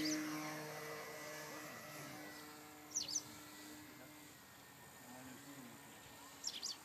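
RC fun-fly model airplane's motor and propeller droning at a steady pitch, fading away as the plane climbs out after takeoff, and nearly gone by about four seconds in. A bird chirps briefly about three seconds in and again near the end.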